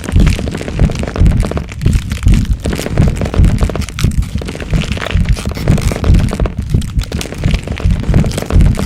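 Growth-transformation sound effect: a dense, continuous run of cracking and crunching over deep, booming thuds, several a second.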